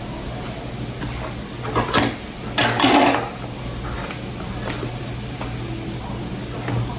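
Kitchen handling noises while bread dough is mixed: two short bursts of clattering and scraping about two and three seconds in, over a steady low hum.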